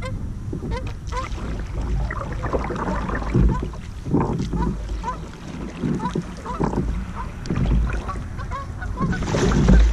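Geese honking over and over in short calls, with a kayak paddle splashing in the water between them.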